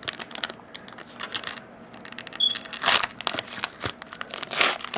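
Trading-card pack wrapper being torn open and crinkled by hand, with light crackling throughout and two louder crinkles about three and four and a half seconds in.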